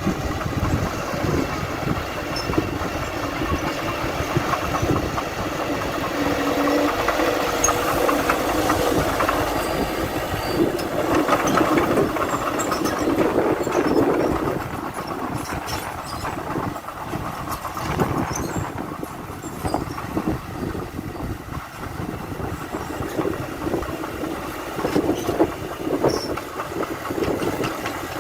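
Diesel engines of heavy earthmoving machinery running under work, with occasional sharp knocks. The sound is louder for a stretch in the first half, then settles.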